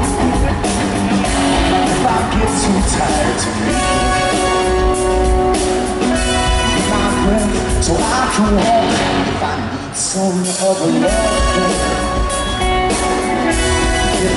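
Rock band playing live, with a male lead singer singing over electric guitar and the band, the low end dropping out briefly about two-thirds of the way through.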